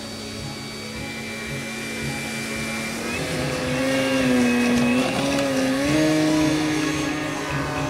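Motor of a radio-controlled model Caudron C366 Atalante running during its takeoff roll on grass, a steady whine that rises in pitch about three seconds in and again near the end as the throttle goes up.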